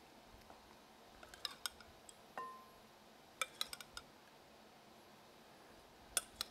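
A metal spoon clinking against glass bowls while vinaigrette is spooned over salad: a few quick clusters of light clicks, and one ringing clink about two and a half seconds in.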